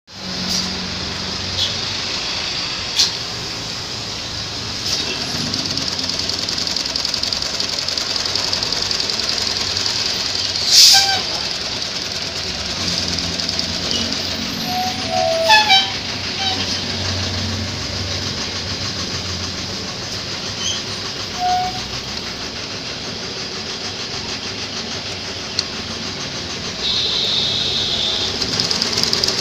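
Fuji treadle-driven sewing machine running steadily, its needle and mechanism making a fast, even clatter as it stitches through a thick fabric strip, with a few sharper clicks now and then.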